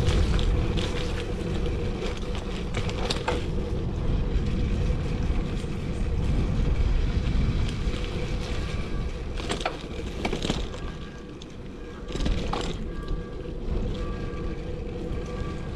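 Wind buffeting a chest-mounted action camera and tyre noise on a moving bicycle, a steady low rumble with scattered clicks and rattles from the bike.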